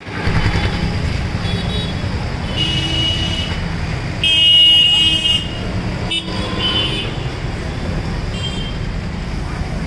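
Street traffic rumbling, with vehicle horns honking several times; the longest and loudest honk comes about four to five seconds in.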